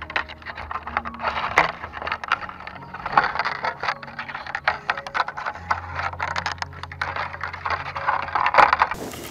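Thin split-bamboo strands scraping and rustling against each other as they are woven by hand through the spokes of a basket base, with many sharp irregular clicks and snaps as the strands are pulled tight and flex.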